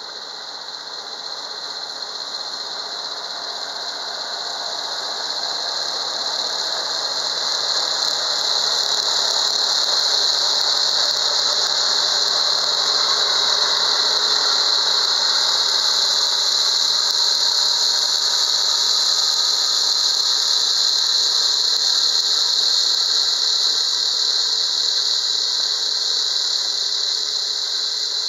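A Kobashi OM150 offset flail mower on a Kubota tractor, running and chopping the second-growth rice stalks left after harvest. A steady high whine sits over the noise of the cutting and the tractor. It grows louder over the first ten seconds or so, then holds.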